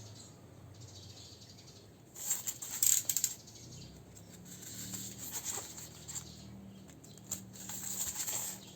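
Packaging being handled: crinkly rustling in two spells, about two seconds in and again near the end, with a faint low hum beneath.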